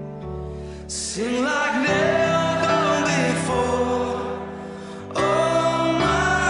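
Background music: a slow song with a singing voice over held chords and a bass line, the voice coming in about a second in.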